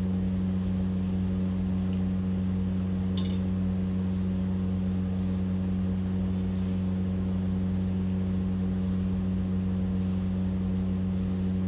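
Steady low machine hum at an even level, with one light click about three seconds in.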